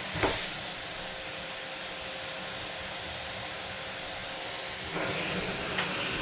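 Vacuum cleaner running with a steady rushing noise, with a short knock just after the start and a slight rise in level about five seconds in.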